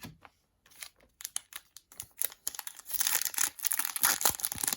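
Trading-card pack wrapper being torn open and crinkled. Scattered crackles build into a dense run of crinkling and tearing about three seconds in.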